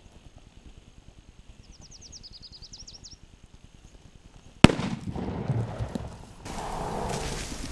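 A single shotgun blast about two-thirds of the way in, taking a Gould's turkey, followed by rustling and scuffling noise. Before the shot, small birds give faint, quick high chirps.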